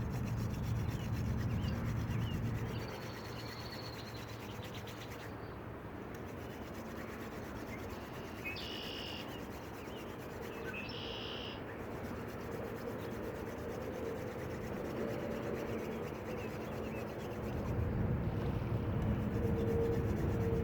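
Wooden hand drill spindle spun back and forth between the palms, its tip rubbing in a wooden hearth board with a steady scraping friction sound. The sound is louder at the start and near the end.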